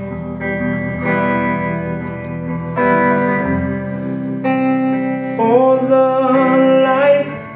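Acoustic guitars playing a slow instrumental passage of a soul-country song, the chords changing every second or two, with a rising, wavering note about five seconds in.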